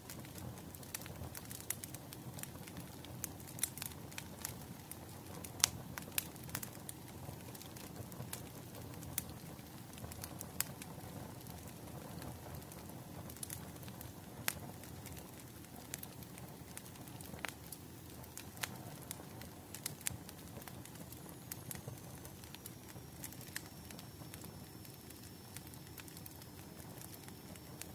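Burning firewood crackling: irregular sharp pops and snaps over a steady low rush of the fire.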